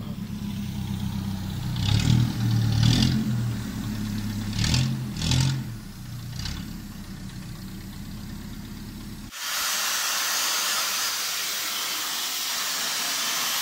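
Gas-fuelled forklift engine running and revving up in several short bursts. About nine seconds in it cuts off abruptly to the steady, loud hiss of a sandblaster stripping paint off a motorcycle frame.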